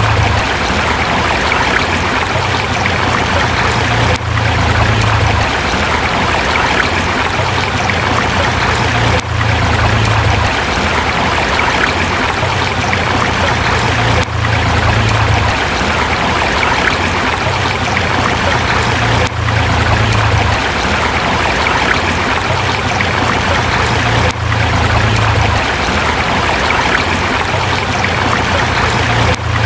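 A river rushing steadily over rocks, a dense, even water noise with a brief dip in level about every five seconds.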